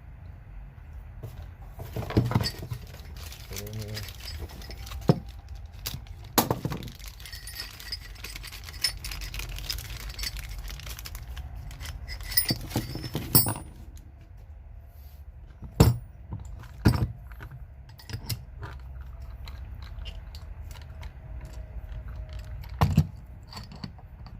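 Metal tool parts being handled: scattered clinks and knocks of a new pneumatic air hammer and its metal accessories, with rustling in the first half and a few sharp knocks later on.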